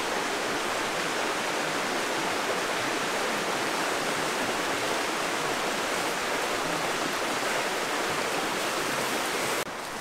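A steady, even rushing noise, like running water, that cuts off suddenly near the end.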